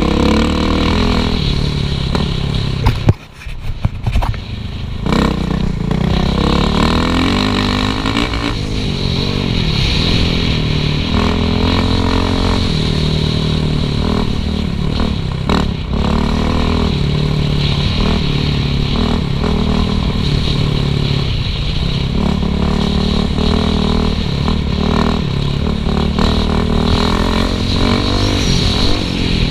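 Suzuki RM-Z450 four-stroke single-cylinder dirt bike engine on a trail ride, its pitch rising and falling over and over as the throttle is worked through the gears. About three seconds in there is a sharp knock and the engine sound briefly drops away before picking up again.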